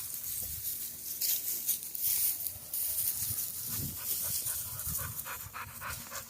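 Pit bulls panting and moving about as they play-fight, with irregular rustling and scuffling noises.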